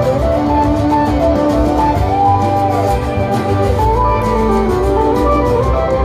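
Live band playing an instrumental passage: a gliding violin melody over plucked guitar and a steady beat.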